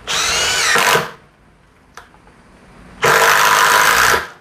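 Ryobi Kyocera BID10XR cordless impact driver driving a screw into hard wood in two bursts of about a second each, about two seconds apart. The first burst drops in pitch toward its end as the screw bites.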